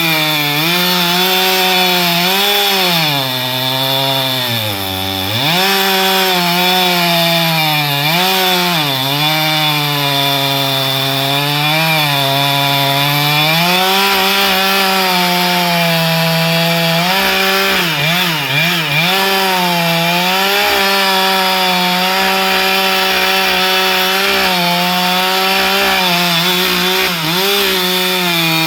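Chainsaw running at high revs while cutting wood. Its engine pitch drops and recovers again and again as the chain bites, most deeply about five seconds in.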